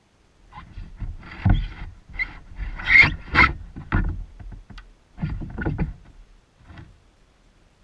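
Irregular knocks, thumps and rustling of gear being handled against a kayak's hull, with a low rumble. It lasts about six seconds and is loudest near the middle.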